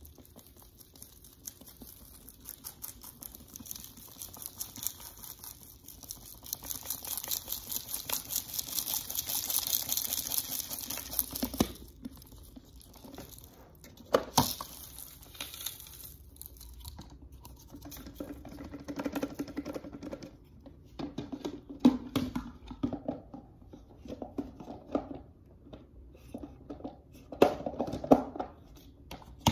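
Packed dust, lint and grit sliding and pouring out of a Bissell PowerForce Helix vacuum's dust bin onto carpet: a dense crackly rustle for the first ten seconds or so. After that come scattered sharp plastic clicks and knocks from the bin being handled.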